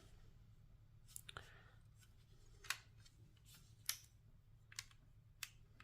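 Faint, scattered clicks and taps of LEGO plastic pieces being handled and shifted in a LEGO puzzle box, about a dozen irregular clicks, the loudest a little under halfway through and about two-thirds of the way in.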